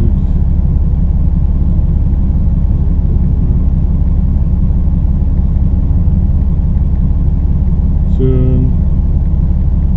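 Truck engine running, heard inside the cab as a steady low rumble.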